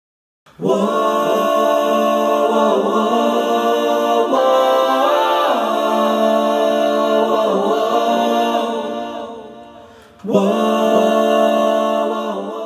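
Background music of long held, choir-like vocal notes. It fades out and starts again about ten seconds in.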